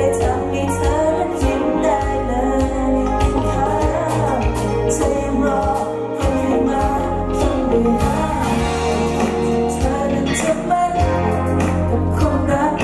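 Live band performance: a male lead vocalist singing a pop song over electric guitar and a full band with a steady beat.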